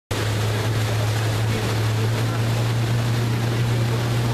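Towing motorboat's engine running steadily at speed, a constant low drone, with a rush of wind and water over it.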